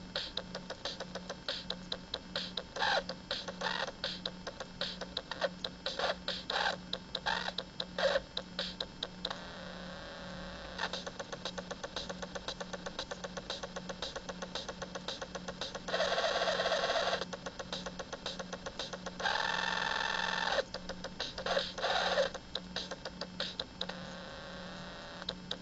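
Circuit-bent toy drum machine glitching: a rapid stream of electronic ticks and clicks over a steady low pulsing hum, broken twice in the second half by about a second of loud, harsh held buzzing.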